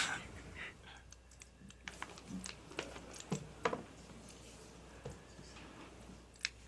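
Faint, irregular clicks and taps over quiet room tone.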